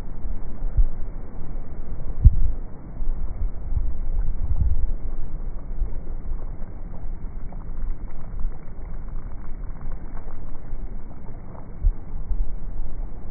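Wind-driven sea waves crashing against a wall: a continuous low rumble broken by irregular heavy thumps, the loudest about two seconds in.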